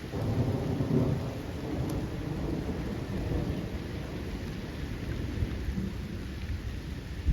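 A long rolling rumble of thunder that starts suddenly, is loudest about a second in and slowly dies away, over steady heavy rain.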